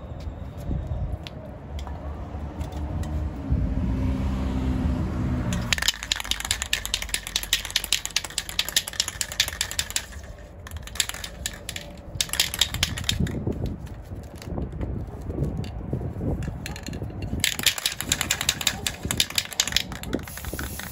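An aerosol spray-paint can being shaken, its mixing ball rattling inside in fast runs of clicks with short pauses between. The first few seconds hold only a low rumble before the rattling starts.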